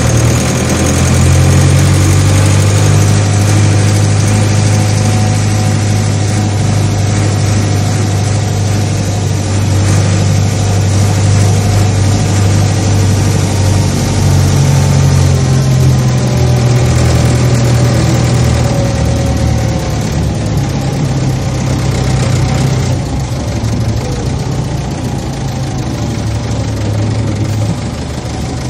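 A tractor engine running steadily with a low hum, its pitch shifting slightly about halfway through.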